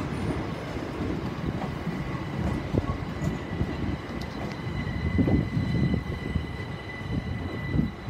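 Class 375 Electrostar electric multiple unit standing at the platform with its equipment running: a steady high-pitched whine over uneven low noise.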